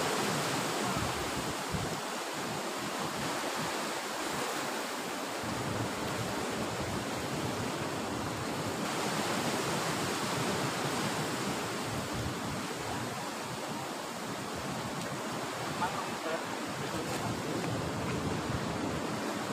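Steady wash of sea surf with wind buffeting the microphone.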